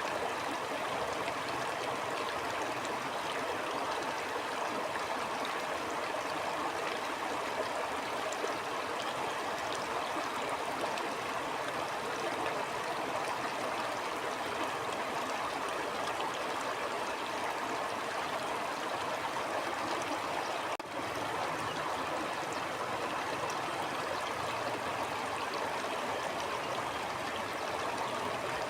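Stream water flowing steadily, a continuous even rush and gurgle, with one momentary dip in level about three-quarters of the way through.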